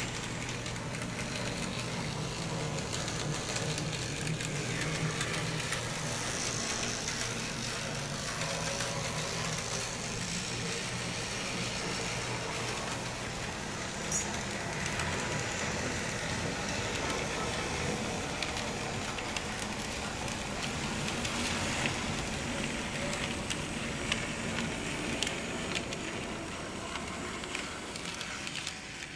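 Steady city-street background noise, like road traffic with faint voices, with one sharp click about halfway through, fading out at the end.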